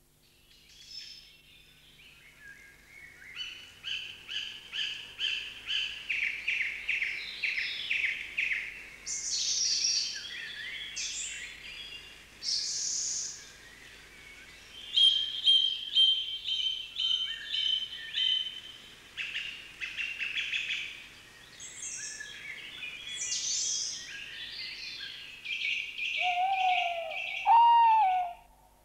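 Night birdsong: varied phrases of rapid repeated notes and trills. Near the end comes a lower, wavering owl hoot.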